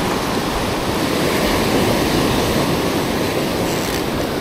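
Ocean surf washing in over the shallows with waves breaking, a steady rushing wash that swells slightly in the middle.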